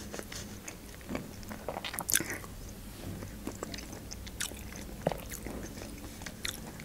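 Close-miked chewing of a small bite of food: soft wet mouth clicks and light crunches at irregular intervals, a little louder about two seconds in and again about five seconds in.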